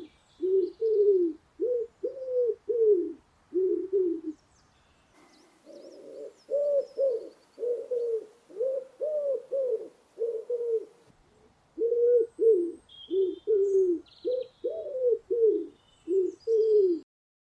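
Dove cooing in quick runs of short, low coos, about two or three a second, pausing briefly about four seconds in and again about eleven seconds in, with faint high chirps above. It cuts off suddenly near the end.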